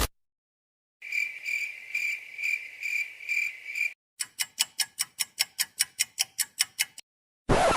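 Cricket chirping sound effect: a high chirr that pulses a little over twice a second for about three seconds. It is followed by a run of sharp, evenly spaced clicks, about five a second, for about three seconds, and a short loud burst near the end.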